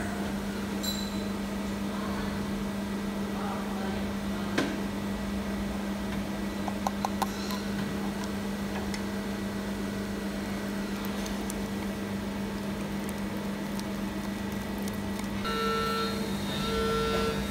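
Steady low electrical hum of running workshop machinery, with a few faint clicks. Near the end, a two-toned electronic beep repeats in short pulses about once a second.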